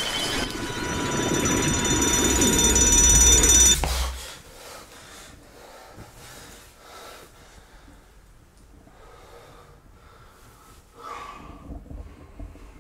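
Film sound design: a high ringing drone of several steady tones over a low rumble swells louder and cuts off abruptly about four seconds in. A man's heavy breathing follows in a quiet room, with a louder gasp or sob near the end.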